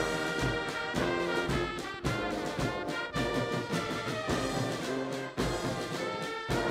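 Military brass band playing a march, horns and trombones carrying the tune over a regular drum beat.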